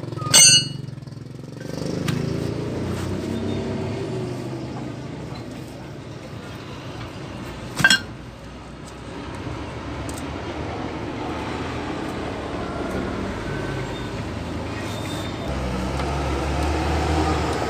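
A sharp metal clank about half a second in and another about eight seconds in, from steel tools striking the rotavator's gearbox, over the steady rumble of a vehicle engine running, which grows louder near the end.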